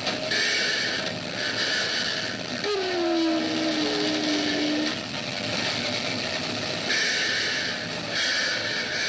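Deliberately distorted, blown-out 'earrape' edit of a recording playing back from laptop speakers: harsh, noisy hiss that cuts in and out in blocks, with a low tone falling slowly for about two seconds around three seconds in.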